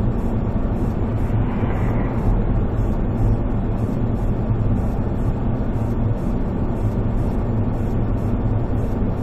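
Steady engine and road noise of a moving car, a low, even rumble with no sudden events.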